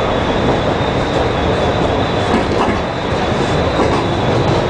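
MBTA Red Line subway car of the 01800 series running over switches, heard from inside at the front: a steady rumble of steel wheels on rail with scattered faint clicks from the joints and frogs.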